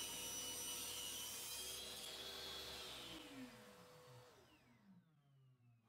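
Table saw ripping a strip of plywood, the cut ending about two seconds in; the saw then runs free and is switched off, its motor and blade winding down with a falling pitch.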